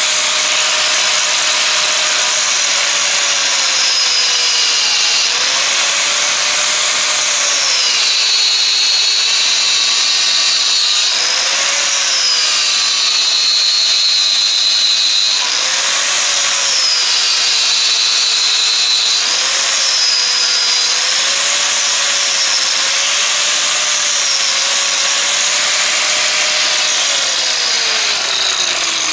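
Electric angle grinder running with its cutting disc biting into rubber and plastic hose. The motor's whine dips in pitch each time the disc loads up in the cut and rises again as it frees, several times over. Near the end the grinder winds down with a falling pitch.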